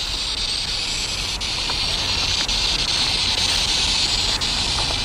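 Spirit box, a handheld radio that sweeps rapidly through stations, giving a steady static hiss with faint clicks about once a second.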